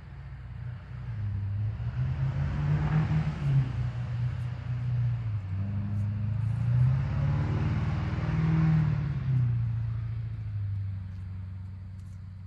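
A motor vehicle's engine passing: a low hum with wavering pitch and a rushing hiss that swells over the first couple of seconds and fades away near the end.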